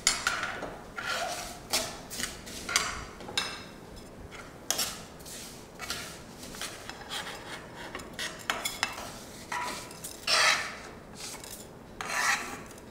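Steel spoon and tongs scraping and knocking against a kadai and a plate in irregular strokes as dry-roasted vermicelli is scooped out of the pan.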